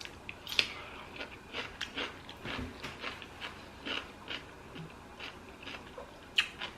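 Close-miked chewing: a person eating, with irregular short crunching and wet mouth clicks.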